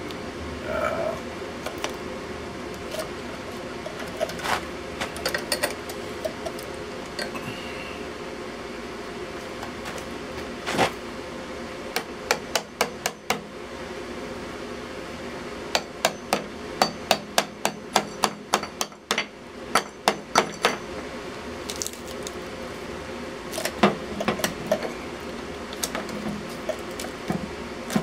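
Hammer striking a steel chisel driven under the old tile-covered top of a rusted metal electrical box, prying it loose. Sharp metallic blows come singly at first, then in two quick runs of about three strikes a second in the middle, then a few more near the end.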